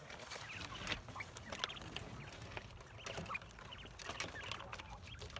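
Backyard poultry calling softly in the background: scattered short clucks and chirps with a few small clicks, faint and irregular.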